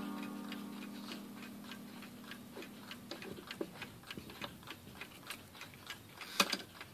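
Restored G.H.S. table cuckoo clock ticking steadily, about three ticks a second, while a low ringing tone from the last strike fades out over the first seconds. Near the end there is a louder clack as the strike mechanism trips and the cuckoo door swings open.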